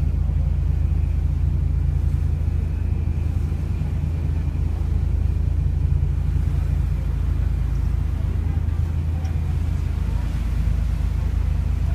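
Boat engine running steadily underway, a low, even drone.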